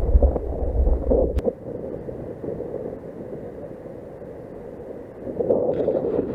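Wind buffeting the microphone over choppy lake water washing against a stony shore. There is a sharp click at the start, and another about a second and a half in, where the low wind rumble drops away.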